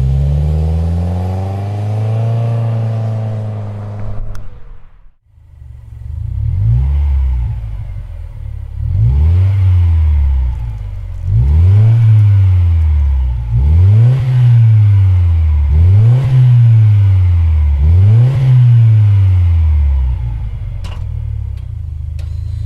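2015+ Subaru WRX turbocharged 2.0-litre flat-four through an aftermarket exhaust, being revved while parked: one rev that climbs and holds, a brief drop to near silence about five seconds in, then about six quick rev blips roughly every two seconds, settling back to idle near the end.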